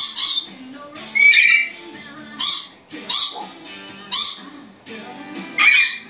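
African grey parrot giving about six short, high-pitched squawks and chirps, roughly a second apart, over background music.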